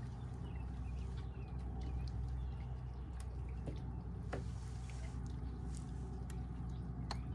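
A steady low hum with faint water drips and small clicks scattered over it.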